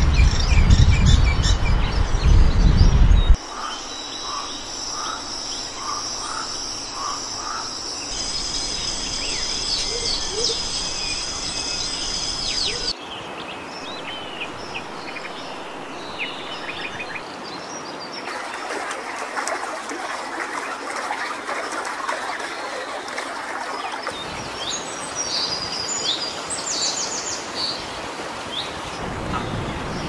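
Outdoor nature ambience of birds chirping and calling, changing in character every few seconds, with a high steady insect-like buzz through the middle stretch. It opens with a few seconds of louder low rumbling noise that cuts off abruptly.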